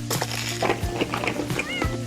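Background music with a steady beat, and one short rising-and-falling cat meow near the end.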